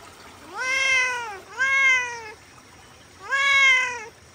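Domestic cat meowing three times, each meow rising then falling in pitch; the first two come close together and the third follows about a second later.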